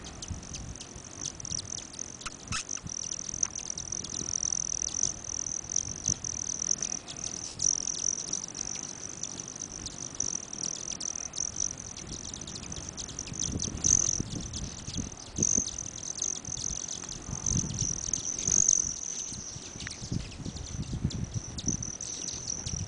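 Hummingbirds flying around and feeding at feeders: a steady high-pitched trill throughout, sprinkled with quick chip-like ticks, and several bursts of low hum in the second half as birds pass close.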